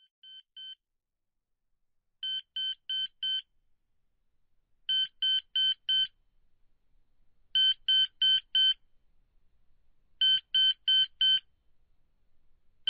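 Alarm clock beeping: two faint beeps, then repeated groups of four quick beeps about every two and a half seconds, growing louder and then holding steady.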